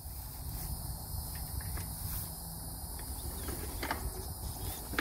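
Steady chirring of insects in the grass over a low rumble, with a sharp click about four seconds in; the motorcycle engine is not running.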